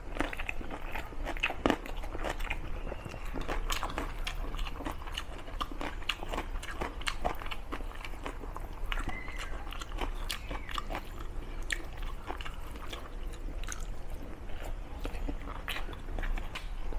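Close-miked chewing: a person eating rice and curry, with wet, irregular mouth clicks, smacks and light crunching through the whole stretch.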